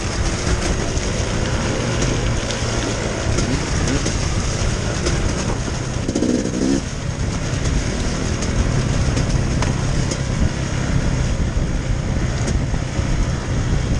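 Enduro dirt bike engine running under throttle while riding down a muddy, rutted dirt track, heard from the rider's onboard camera.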